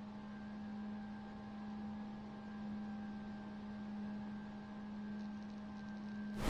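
A faint, steady hum: one low tone with several weaker higher tones above it, unchanging in pitch and level.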